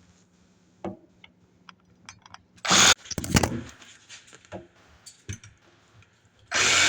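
Hand tools and hose parts being handled: scattered clicks, knocks and rattles, with a louder short scraping burst about three seconds in. A loud steady noise starts just before the end.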